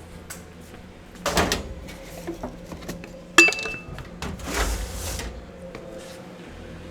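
An axe splitting firewood into kindling: three strikes, about one, three and a half and four and a half seconds in. The middle strike is the loudest, a sharp crack with a brief metallic ring.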